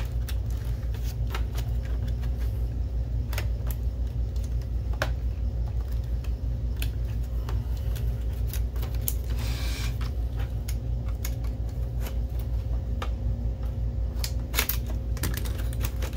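Scattered clicks and light knocks of metal and plastic parts being handled as a projector's fan bracket is fitted back into its plastic housing, with a brief rub about ten seconds in. A steady low hum runs underneath.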